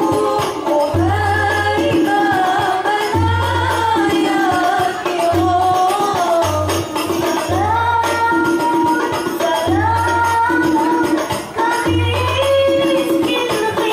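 Hadroh ensemble: female voices singing a devotional melody with held, gliding notes into microphones, over rebana frame drums beaten in a steady interlocking rhythm.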